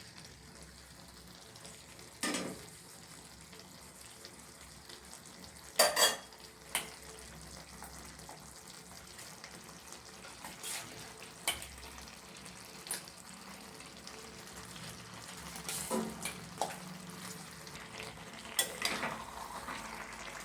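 Cabbage and vegetable curry sizzling softly in a pan while a spatula stirs it, scraping and knocking against the pan every few seconds as crushed fried fish heads are mixed in. The loudest knocks come about six seconds in.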